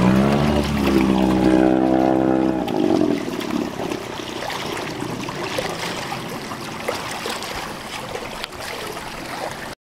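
Small Yamaha outboard motor on a canoe running, rising in pitch in the first second and then holding steady before it drops out about three seconds in. Wind and water lapping carry on after it, until the sound cuts off suddenly at the end.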